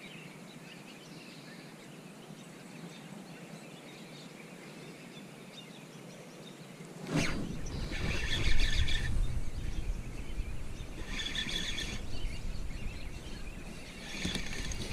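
Quiet riverside ambience with faint bird chirps. About halfway through, a sudden low rumble of wind and handling noise on the camera microphone sets in, with three short bursts of whirring rattle from a spinning reel being cranked on the retrieve.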